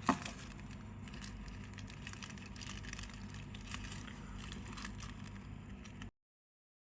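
Faint handling noises, small clicks and light crinkles, over a steady low hum, cutting off to silence about six seconds in.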